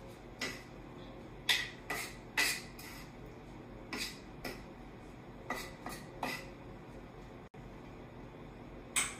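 Wooden salad servers tossing dressed shredded greens on a wooden cutting board: about a dozen irregular knocks of wood on wood.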